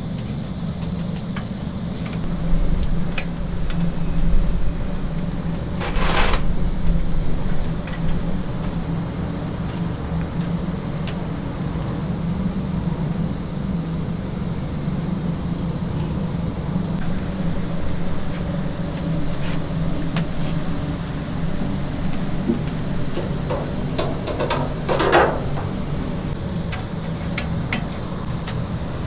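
Steady low machine hum, with a short clatter about six seconds in and another near twenty-five seconds.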